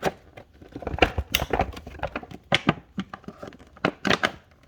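Stiff plastic blister packaging crinkling and crackling in irregular sharp snaps as stacks of trading cards are worked out of it.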